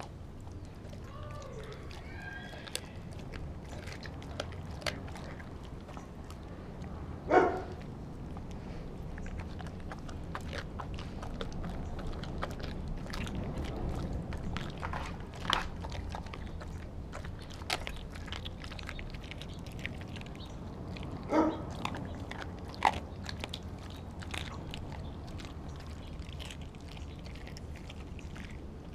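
A Doberman eating at a stainless steel bowl: crunching, chewing and small clicks of food against the bowl, with a few louder knocks of the metal bowl, the loudest about seven seconds in and again about twenty-one seconds in.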